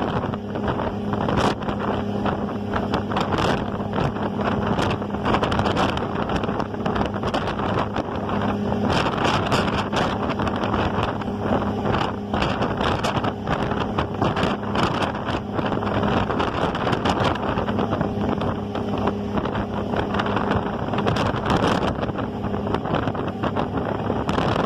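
Ferry engine running with a steady low drone, under heavy wind buffeting and crackling on the microphone.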